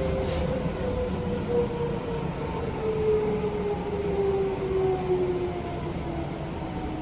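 Hitachi IGBT-VVVF inverter and traction motors of a Seibu 20000 series train whining, the tones gliding steadily down in pitch as the train slows, over the rumble of wheels on rail.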